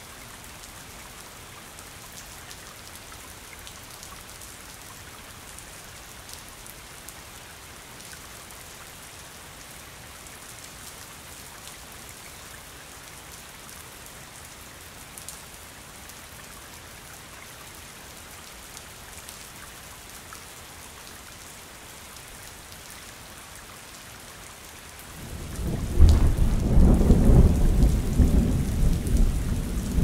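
Steady rain falling. Near the end a loud, low rumble of thunder breaks in and rolls on.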